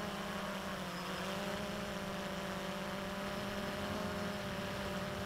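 XK Detect X380 quadcopter's brushless motors and propellers running in flight: a steady pitched hum whose pitch dips slightly about a second in.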